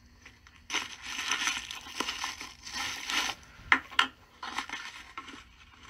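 A tobacco pipe being puffed: several short, airy draws with crackle, and two sharp clicks about two-thirds of the way through.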